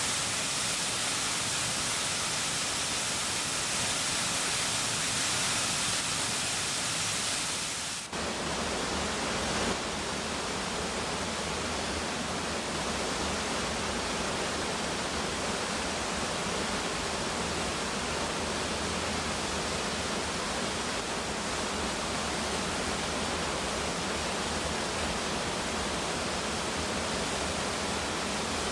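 Waterfall: a steady rush of falling water. About eight seconds in it changes abruptly from a bright hiss to a fuller, deeper rush.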